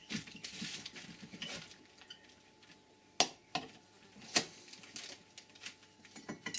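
A screwdriver and the finned aluminium cylinder head of an air compressor clicking and scraping against each other and the bench as the head is worked off to reach the failed head gasket. There are scattered light knocks, with sharp metallic clicks about three and four and a half seconds in.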